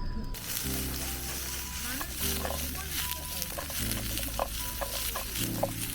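Food sizzling and crackling as it fries in a hot pan, starting abruptly just after the start.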